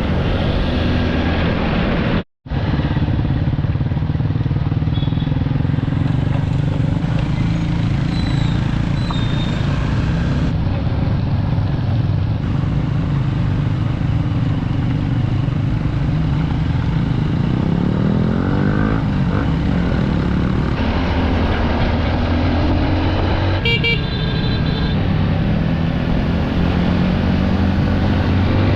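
Honda 150cc dirt bike engine running steadily under way, with the engine pitch rising and falling around two-thirds of the way through as the revs change. The sound drops out completely for a moment about two seconds in.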